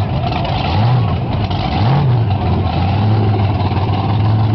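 JCB backhoe dragster's engine revved in short blips about once a second, then held at a steady speed for the last part.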